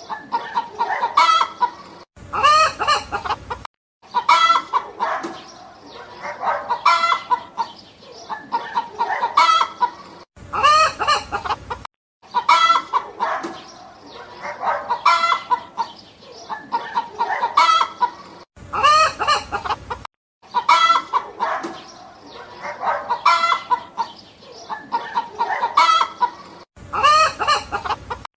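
Hens clucking in quick bursts, with a rooster crowing about every eight seconds. The same few seconds of clucking and crowing repeat several times, like a loop.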